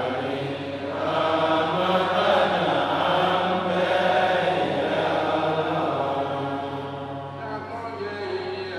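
Men's voices chanting together in unison, a slow, drawn-out melodic recitation.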